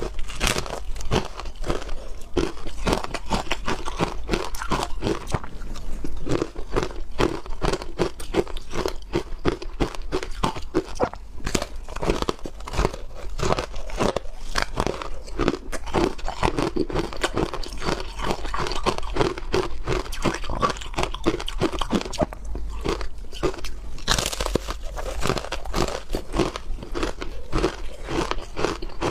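Ice being bitten and chewed close to the microphone: a rapid, continuous run of crunches.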